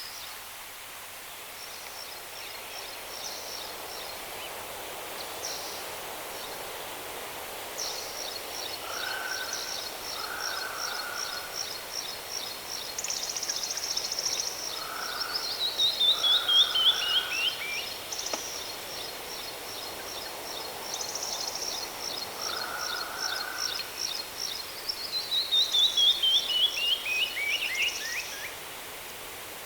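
Steady rushing of a waterfall under birdsong: a rapid high trill of repeated notes that twice breaks into a descending cascade, the loudest moments, with a few short lower calls from another bird.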